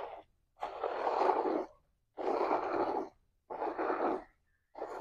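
Goat milk squirting from a hand-squeezed teat into a small steel cup: four hissing streams, each about a second long, at a steady milking rhythm.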